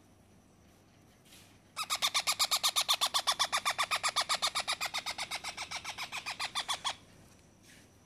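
A 20-day-old parrot chick calling in a rapid run of harsh, even pulses, about ten a second, starting about two seconds in and stopping abruptly about five seconds later.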